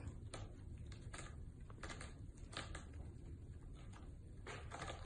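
Kitten's claws scratching and catching on a sisal-rope scratching post: faint, irregular scratchy clicks.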